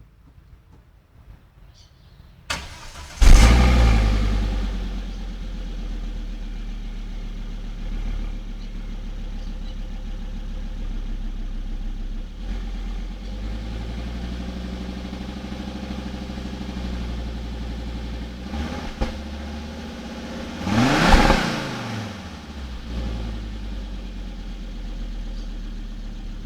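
Volvo S60 T5 with its stock exhaust starting: a click, then the engine catches about three seconds in with a loud flare and settles into a steady idle. About twenty seconds in, a single quick rev rises and falls back to idle.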